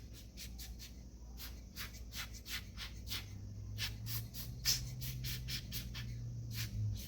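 Ranger alcohol-ink air blower, a hand-squeezed bulb, giving quick repeated puffs of air, about three or four a second, to blow wet acrylic paint into waves. A faint low hum comes in partway through.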